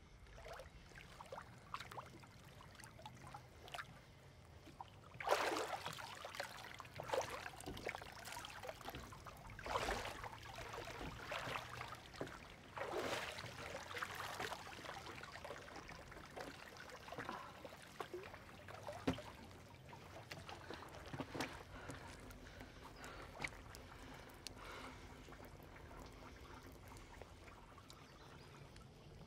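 Lake water splashing and sloshing as a person moves through it, in irregular splashes. The loudest comes about five seconds in, and the splashing thins out in the second half.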